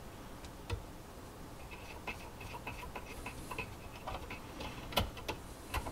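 Light, irregular clicking and tapping of a graphics card being fitted into a motherboard's PCIe slot on an open test bench, with a few sharper clicks about a second in and near the end.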